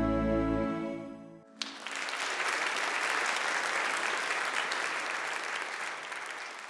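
The held closing chord of a soft song dies away, then an audience breaks into applause about a second and a half in, and the clapping slowly fades.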